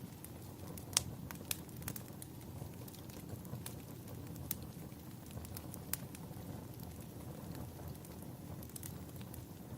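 Wood fire crackling: irregular sharp pops over a low, steady rumble of burning, the loudest pop about a second in.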